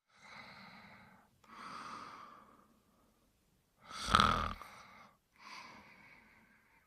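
Snoring during sleep: four slow breaths, the third, about four seconds in, much louder and shorter than the rest.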